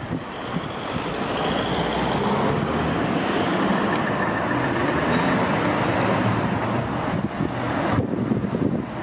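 Freight train approaching on the line, a steady rumble and rush that swells over the first couple of seconds.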